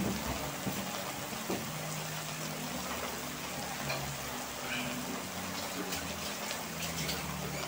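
Bottle gourd and shrimp in sauce simmering in a metal wok, a steady low sizzle and bubbling with faint crackles.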